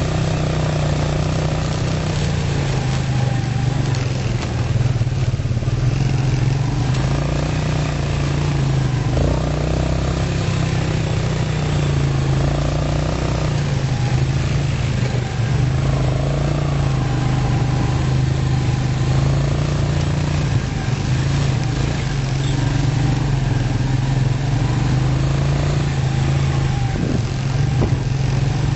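All-terrain vehicle engine running steadily while riding, its pitch rising and falling slightly with the throttle.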